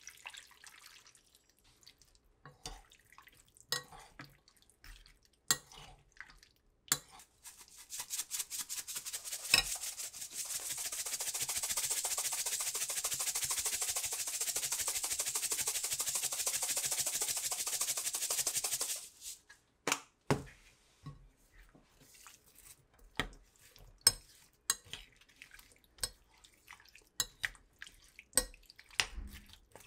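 A seasoning shaker shaken quickly over a glass bowl of marinating salmon, a dense fast rattle for about ten seconds in the middle. Before and after it come scattered clinks and taps of a spoon against the glass bowl as the mixture is stirred.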